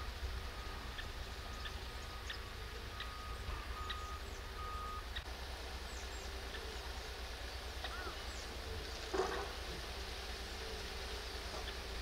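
Outdoor ambience: a steady low rumble with short high chirps repeating under a second apart, and one louder rustling noise about nine seconds in.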